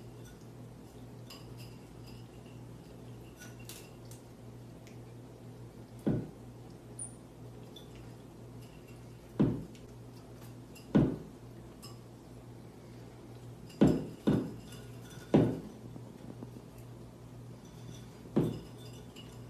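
Wooden rungs of a hanging rope ladder knocking and clacking as a marmoset climbs and swings on it: about seven sharp knocks at irregular intervals.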